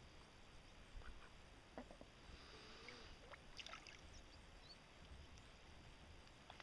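Near silence: faint water movement in a shallow plastic wading pool, with a few scattered small clicks and knocks.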